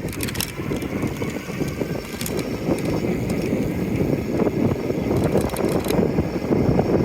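Wind buffeting the microphone in an uneven low rumble, with a few faint clicks, typical of riding along with the camera exposed to the wind.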